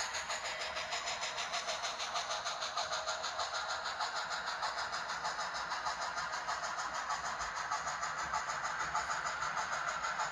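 Factory-installed Tsunami DCC sound decoder in a Blackstone HOn3 D&RGW C-19 model steam locomotive, playing a steady run of steam exhaust chuffs, about four to five a second, through its small onboard speaker.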